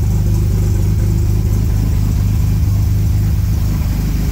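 1938 SS Jaguar 3½ Litre's straight-six engine running steadily at an even, unchanging speed.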